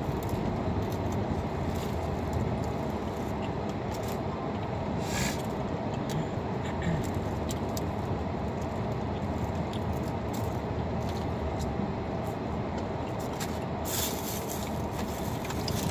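Steady rumble of a moving car heard from inside its cabin, with a few brief faint rustles.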